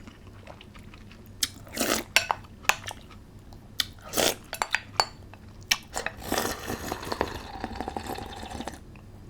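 Close-miked eating sounds: crunchy chewing of spicy noodles with crisp old cucumber, with sharp utensil clicks against a dish. About six seconds in there is a longer stretch of continuous noisy sound.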